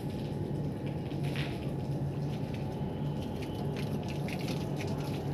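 Water running and dripping, with scattered drip ticks over a steady low rush and hum.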